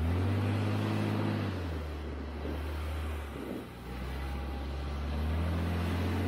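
Off-road tow vehicle's engine pulling a stuck Range Rover through soft sand on a tow rope. It is loud and labouring at first, eases off about a second and a half in, and pulls hard again near the end, over a steady hiss of wind and tyres.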